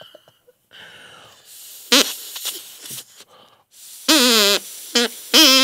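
Homemade drinking-straw oboe blown in short, buzzy honks with a wobbly pitch: one brief toot about two seconds in, then three louder honks near the end, the last held for about half a second.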